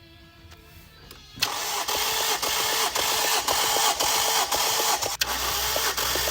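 Car engine turned over on the starter for a compression test, starting suddenly about a second in and cranking steadily with a regular pulse about twice a second. Faint music plays before it.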